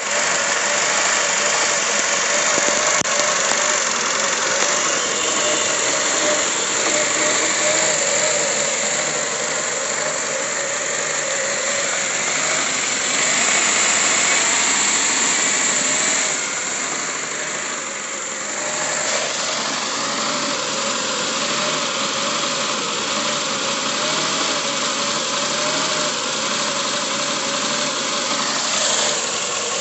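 Mitsubishi 3.5-litre 24-valve V6 engine running at idle on its first start in two years, with the rough idle of a long-stored engine.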